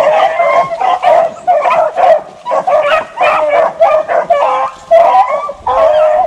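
Beagles baying and yelping over and over while running a rabbit on its scent, short barks mixed with longer drawn-out bawls, the calls overlapping.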